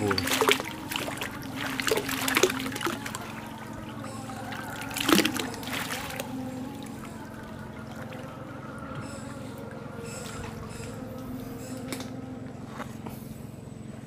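Shallow water splashing and sloshing around a crab trap being handled while wading, with several sharp splashes in the first few seconds, the loudest about five seconds in, then settling to a quieter trickle.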